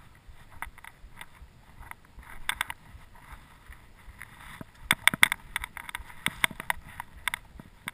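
Irregular sharp clicks and knocks from a mountain bike and its clipped-on action camera rattling, coming thickest about two thirds of the way through.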